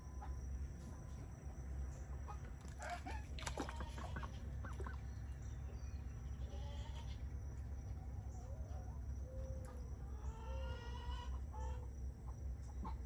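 Rhode Island Red chickens clucking and calling in short scattered bursts over a steady low rumble, with a few gliding calls near the end.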